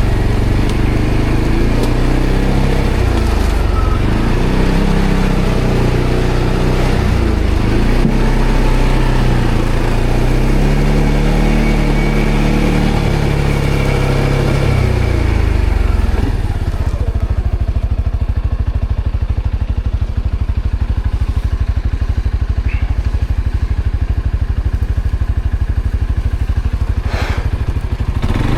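ATV engine running with the throttle rising and falling, its pitch going up and down. About two-thirds of the way in it drops to a steady, even idle.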